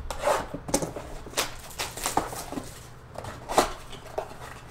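Cardboard trading-card blaster box being torn open and handled: irregular scratchy rustles and tearing, the loudest about three and a half seconds in.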